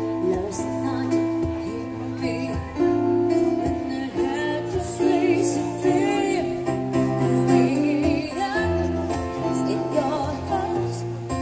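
Live band music: a woman singing into a microphone over a strummed acoustic guitar.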